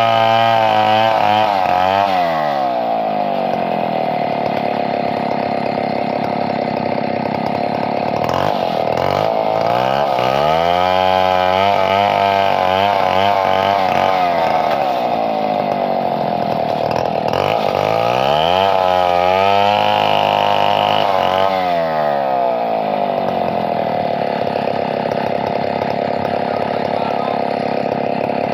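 Two-stroke chainsaw running at high revs, its engine pitch dropping and climbing back up several times.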